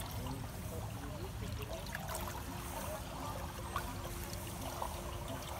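Swimming-pool water trickling and lapping steadily along the pool's edge, with a faint steady hum joining about two seconds in.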